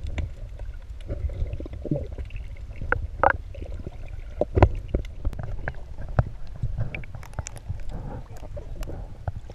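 Muffled underwater sound of the sea, heard through a submerged waterproof camera: a steady low rumble of moving water with gurgling and scattered sharp clicks and knocks, the strongest a few seconds in.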